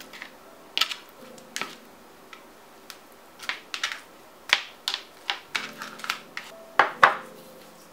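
Hands handling seasoned pork pieces on a baking tray: irregular sharp clicks and taps as the meat and fingers knock against the tray, the loudest two close together near the end.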